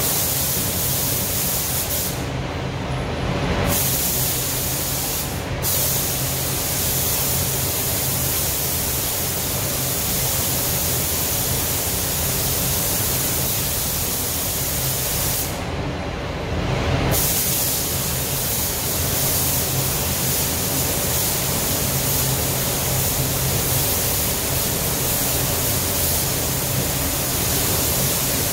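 Compressed-air automotive spray gun hissing steadily while spraying paint, its hiss stopping briefly about two seconds in, again around five and a half seconds, and for about a second and a half around sixteen seconds as the trigger is released. A steady low hum from the paint booth's air system runs underneath throughout.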